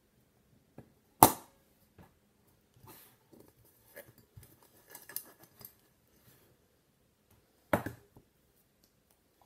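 Metal cookware being handled. A sharp clink about a second in as a small aluminium cake pan is set into a titanium mug, then several lighter taps and scrapes as the mug and lid are handled. Near the end a second clank as the mug is set down on a wire pot stand on a metal tray.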